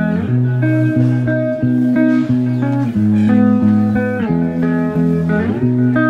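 Instrumental background music led by plucked guitar, with notes changing every half second or so over a steady bass line.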